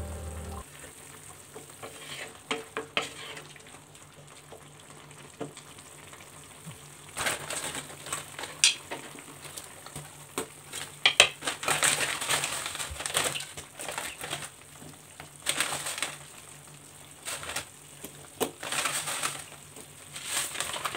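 A pan of meat and vegetables in broth sizzling and bubbling on the stove, in uneven bursts of a second or two, as blocks of dry rice-stick noodles are laid in.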